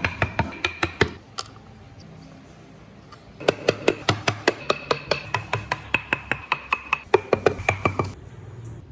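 Fast, even strokes of a hand tool working wood, about six a second, in two runs with a pause of about two seconds between them.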